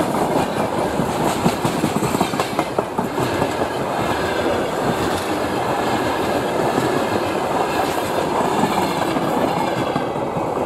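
Freight train wagons rolling past close by: a steady rumble with the clickety-clack of wheels over rail joints, the clicks densest about a second to three seconds in.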